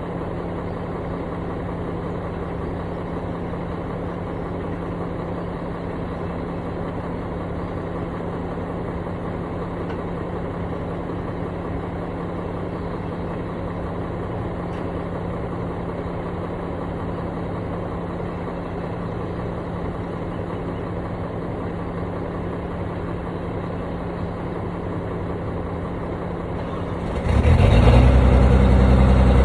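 Construction machine's engine idling steadily, then getting much louder and lower about 27 seconds in as it is revved or put to work.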